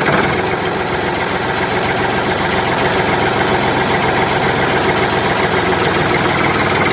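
An engine idling steadily with a fast, even chug, a tractor engine sound laid over the toy tractor footage.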